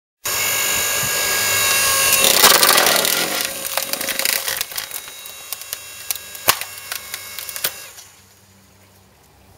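FM10 Duocut electric log splitter, its 2200-watt motor running as the ram drives a log onto the wedge. The wood cracks and splits with many sharp cracks and splintering, loudest about two and a half seconds in, and the noise drops away near the end.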